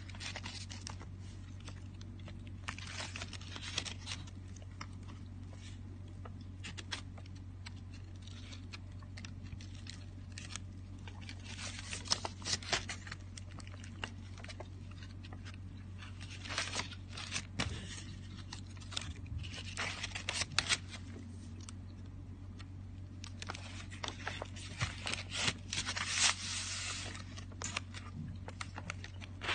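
Thick, stiff pages of an old book being turned and handled, rustling and scraping in irregular bursts, over a steady low hum.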